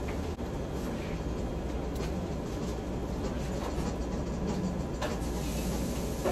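Steady low rumble of room noise, with a few faint soft clicks from a person chewing a mouthful of burrito.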